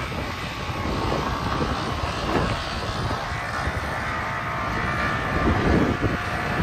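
Semi truck's diesel engine running steadily with the end-dump trailer's hydraulic hoist raised, while sand slides out of the tipped trailer. Wind buffets the microphone in gusts.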